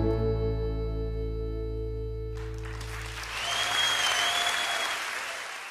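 The song's last sustained chord rings out and dies away; about two and a half seconds in, an audience breaks into applause with a high whistle over it, the whole fading out near the end.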